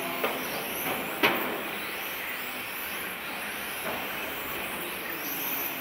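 1/10-scale electric touring cars with 17.5-turn brushless motors racing, their motors giving a high whine that rises and falls over a steady hiss of tyres on the track. A sharp knock sounds about a second in.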